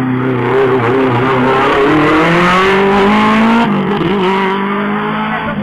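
Race car accelerating hard out of a hairpin, its engine revving up steadily. About three and a half seconds in there is an upshift, after which the engine pulls up again as the car draws away.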